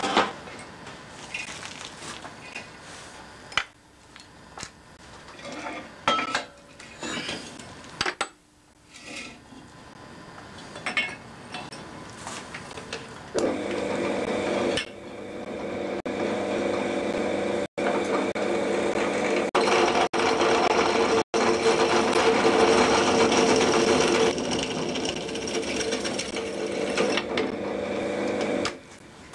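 Metal tools clanking and knocking against a drill's vise and table, then the pillar drill's motor runs steadily for about fifteen seconds before cutting off suddenly near the end.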